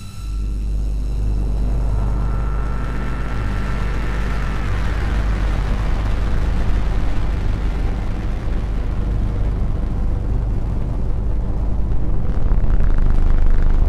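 Lumanoise v4 electronic noise instrument playing a dense, rumbling noise drone through a Memory Man delay and plate reverb. A thin tone comes in about two seconds in and glides downward from about four and a half seconds, and the noise grows brighter near the end.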